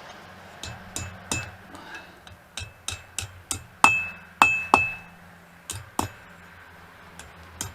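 Blacksmith's hand hammer striking a bar of mild steel on an anvil: about a dozen uneven blows, some leaving a short metallic ring, the hardest ones around four to five seconds in.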